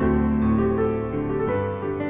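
Digital piano playing a slow solo piece in sustained chords, with a new chord struck at the start and another about a second and a half in.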